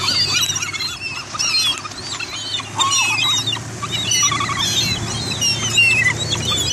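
A flock of gulls calling overhead while being hand-fed: many short, overlapping cries that rise and fall in pitch, coming thick and fast.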